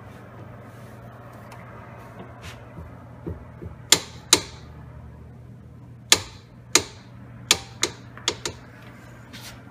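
Torque wrench on a rear wheel hub nut being pulled up to 160 foot-pounds: sharp metallic clicks of the wrench's ratchet head and break-over, about eight loud ones at irregular spacing from about four seconds in, with fainter ticks before them.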